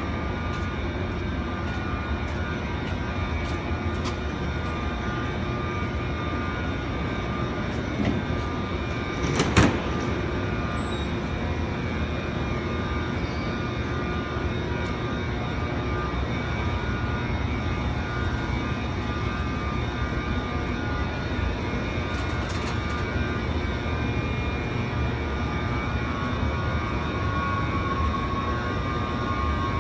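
KTX high-speed train at the platform giving a steady hum with several constant high whining tones. A single sharp clack comes about ten seconds in.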